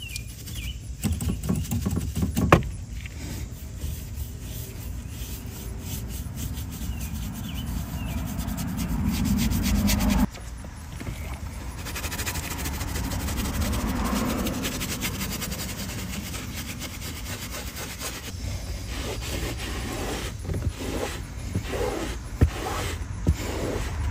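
Scrubbing and rubbing on the car's surfaces during cleaning, with scattered knocks and clicks; the sound changes abruptly about ten seconds in.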